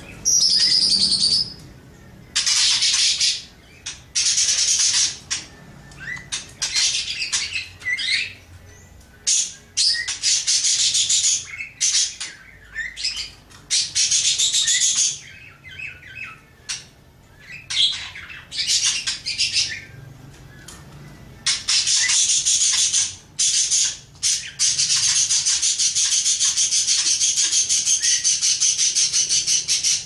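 Budgerigar warbling and chattering in a rapid, scratchy song, first in bursts of a second or two with short pauses, then in one long unbroken run from about two-thirds of the way in.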